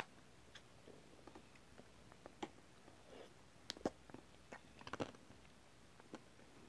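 Close-up mouth sounds of eating a Magnum Ruby ice cream bar: scattered wet clicks, smacks and crackles as the pink ruby-chocolate shell is bitten and chewed. The sounds are faint and sparse, with the loudest ones about four and five seconds in.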